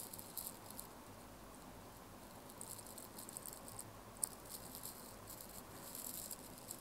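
Faint clicks and light scratching of a stylus tapping and drawing on a tablet's glass screen, in short scattered clusters, with one sharper tick about four seconds in.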